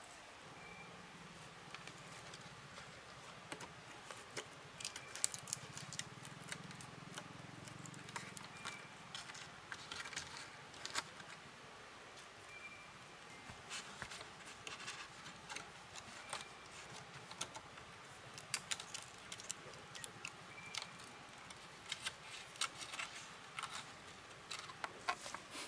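Irregular light clicks, snaps and rustles of hand work with natural materials, with a brief faint high chirp every few seconds.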